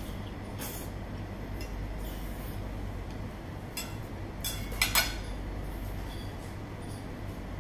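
Knife and fork clinking against a plate: a few light clicks, then two sharp clinks about five seconds in, over a steady low hum.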